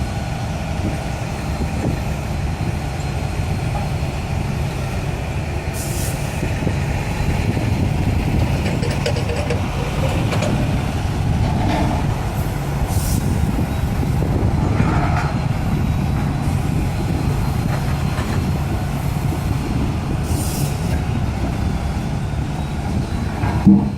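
Daedong DPD850T hydraulic vibratory pile driver on a Volvo EC480 excavator, running continuously while driving a steel sheet pile: a steady, loud, low drone under the excavator's diesel engine. Short hisses come and go, and a single sharp knock sounds just before the end.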